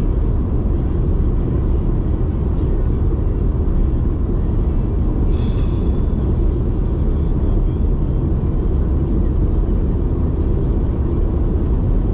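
Steady low road and engine rumble of a small car driving at speed, with a brief higher-pitched sound about five seconds in.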